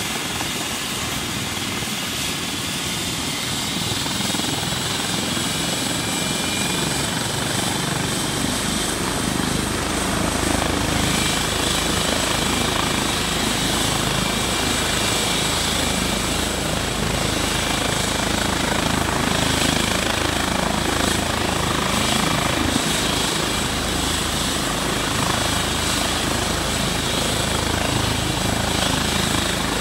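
Eurocopter EC135 helicopter idling on the ground before lift-off, its twin turbines whining steadily under the main rotor's wash. The sound grows louder and fuller about four seconds in and again about ten seconds in.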